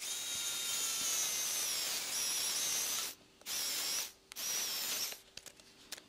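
Pen-style electric precision screwdriver whining as it drives a tiny screw into a metal wallet frame. It makes one long run of about three seconds, its pitch sagging slightly as the screw bites, then two short bursts.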